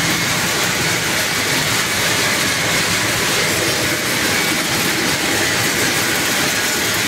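Almond cleaning machinery running with in-shell almonds going through it: a steady, dense mechanical noise.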